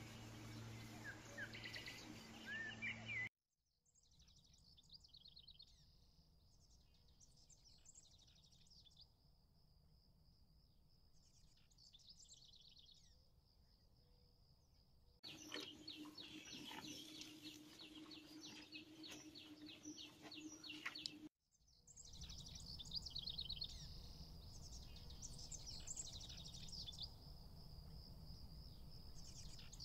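Faint outdoor ambience of songbirds chirping and trilling, in several stretches broken off by abrupt cuts about three seconds in and again about two-thirds of the way through.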